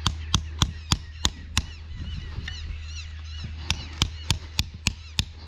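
Sharp knocks in two quick runs, about three a second, with a pause of about two seconds between them. Birds call in the pause, over a low steady hum.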